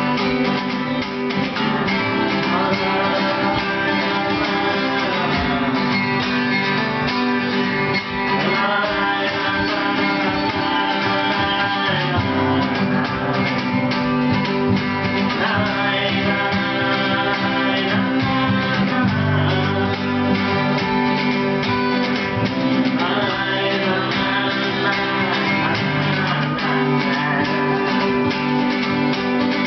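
Acoustic guitars strummed in a steady rhythm through an instrumental passage of a song, with a melodic acoustic guitar line moving over the chords.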